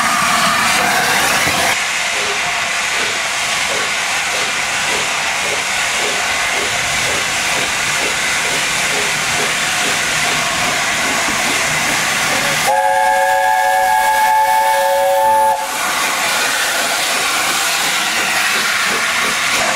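LNER A4 steam locomotive Sir Nigel Gresley hissing steam steadily. About two-thirds of the way through, its chime whistle sounds a steady chord for about three seconds and cuts off sharply.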